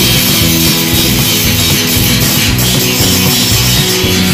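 Loud background music with a steady beat.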